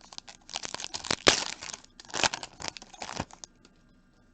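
Plastic trading-card pack wrapper being torn open and crinkled by hand: a run of crackling tears, the loudest about a second in, dying away past the middle.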